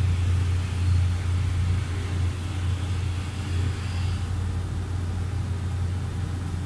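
A steady low hum with faint rustling of a bed sheet being spread and smoothed over the mattress.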